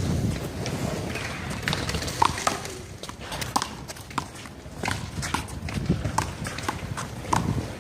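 A one-wall handball rally: a string of irregular, sharp smacks as the small rubber ball is struck by hand and bounces off the wall and pavement.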